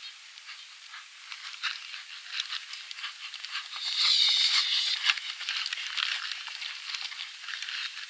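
A horse galloping on dry, dusty ground, a rapid run of hoofbeats with scuffing and crunching of dirt. It grows loudest as the horse passes close, about four seconds in. The sound is thin, with no bass.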